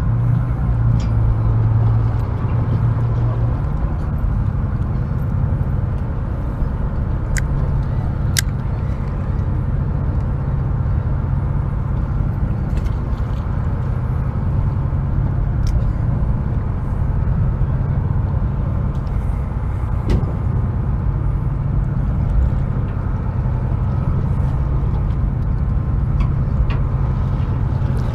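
Steady low drone of the fishing boat's engine, with a couple of sharp ticks about seven and eight seconds in.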